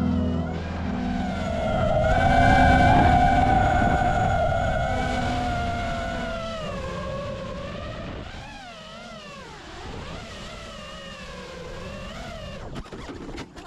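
FPV quadcopter's brushless motors (2207 1850KV on 6S, tri-blade props) whining, the pitch holding steady, then sagging and swinging up and down with the throttle. A few clicks come near the end just before the sound cuts off.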